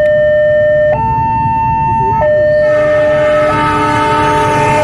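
Railway level-crossing warning alarm sounding a two-tone signal, switching between a low and a higher tone about every 1.3 seconds. From about halfway through, a rising rush of noise from the approaching train joins it.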